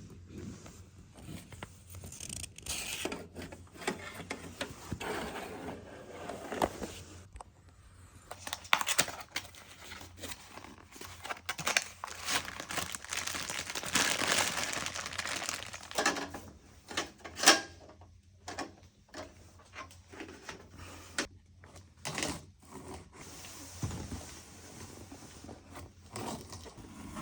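Packaging being handled: irregular crinkling, tearing and scraping, broken by sharp clicks and knocks. The loudest knock comes about two-thirds of the way through.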